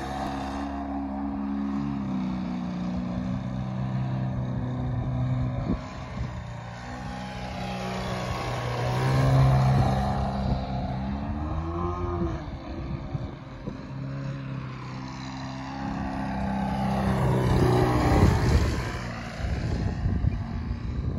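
Hangar 9 Carbon Cub FX-3 radio-controlled model airplane's motor and propeller running in flight. Its pitch and loudness rise and fall as the throttle changes and the plane passes close by, loudest about nine and eighteen seconds in.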